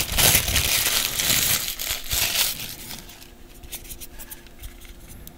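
Protective wrapping crinkling as it is pulled off a small earbud charging case. The crinkling stops a little past halfway, leaving only faint handling clicks.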